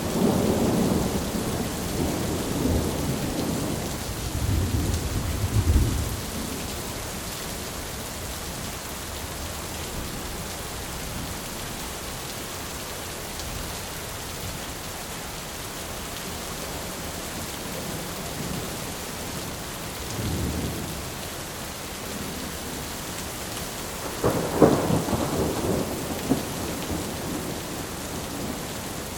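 Heavy rain pouring steadily while thunder rumbles: a long rolling peal in the first six seconds, a faint distant rumble about two-thirds through, and a sharper, louder crack of thunder rolling on for a few seconds near the end.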